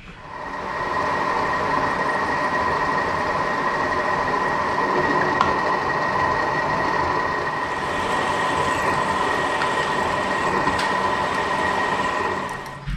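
Milling machine running with a steady whine while a drill bit bores into a metal workpiece. The sound comes up about a second in and cuts off near the end.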